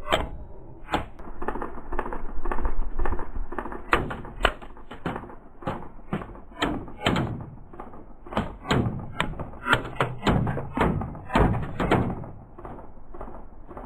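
A rapid, irregular run of sharp knocks and thuds, two or three a second, that thins out near the end.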